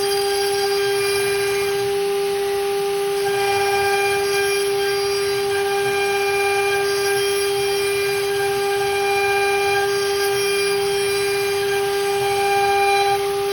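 CNC router spindle running with a steady high whine while machining a gun grip.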